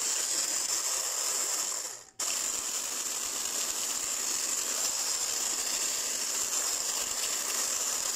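Kenwood hand blender with a wire whisk attachment running steadily as it whisks liquid cake batter in a bowl. It cuts out briefly about two seconds in, then runs on.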